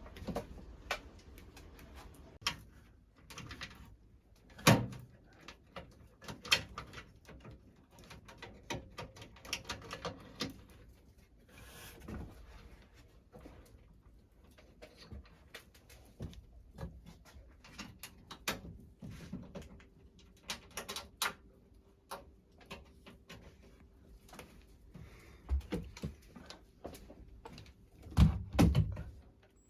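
Scattered clicks, taps and knocks of hand work fitting a recessed light/exhaust fan combo into the ceiling. A louder knock comes about five seconds in and a cluster near the end.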